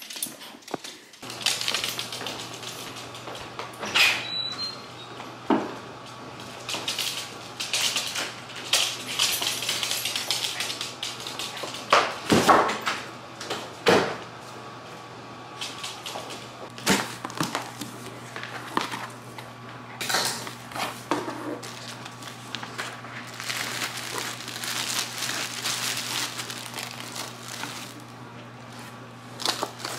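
Scattered household handling sounds: short knocks and clatters, with longer stretches of rustling packaging in the last third, over a low steady hum.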